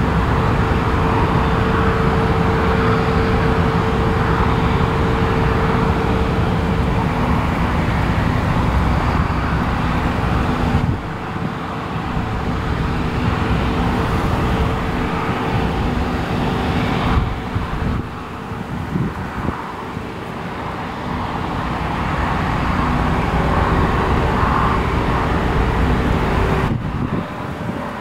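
Claas Lexion 600TT combine harvester running steadily while cutting oilseed rape: a continuous engine and threshing drone with a steady hum. The sound drops and changes abruptly about 11 seconds in, and again near the end.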